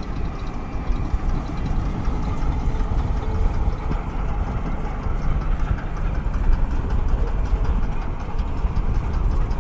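An old train's locomotive engine running with a steady low rumble.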